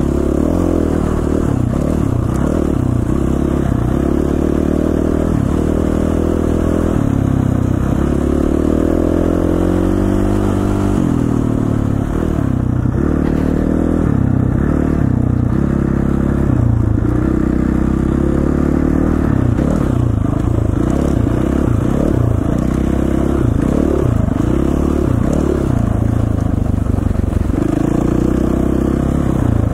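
KTM 450 dirt bike's single-cylinder four-stroke engine running under way, its pitch rising and falling again and again with the throttle.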